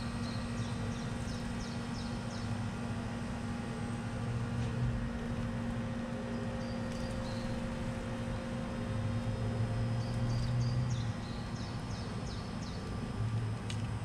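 Outdoor backyard ambience: a steady low hum with a rumble that swells and fades three times, and a small songbird singing runs of about half a dozen quick, falling high notes, three times.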